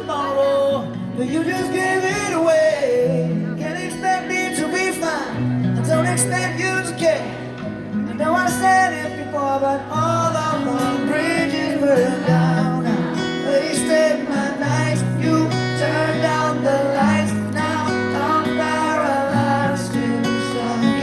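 Live pop-rock band music with singing over a bass line that holds each note for a second or two.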